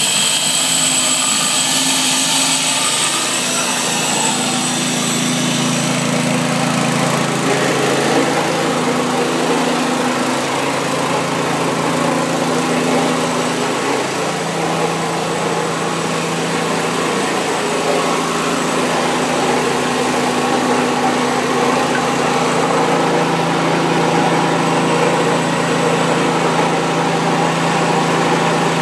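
Handheld grinder running steadily with a continuous motor whine, its disc grinding the bevel on a marble slab's edge. The high whine is strongest in the first few seconds, then the tool runs on at a steady pitch.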